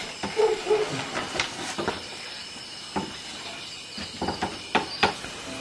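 Scattered knocks and clicks of footsteps and a wooden door being pushed open, with a small cluster of knocks near the end, over a steady high chirring of night insects.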